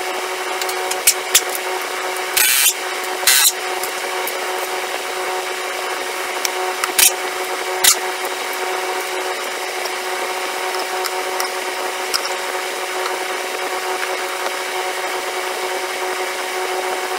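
Tools working on the rear main bearing cap of a Ford 351 Cleveland V8 from underneath. A few sharp clicks come first, then two short rasping bursts about a second apart, then two more clicks several seconds later, all over a steady hum.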